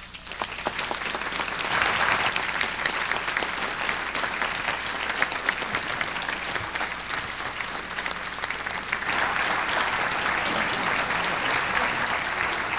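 Audience applauding, many hands clapping together. The applause builds over the first couple of seconds and swells again about nine seconds in.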